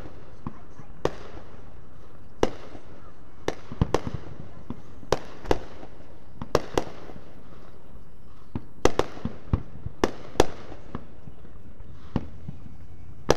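Aerial fireworks bursting: a string of sharp bangs at irregular intervals, loudest in a quick cluster about nine to ten and a half seconds in.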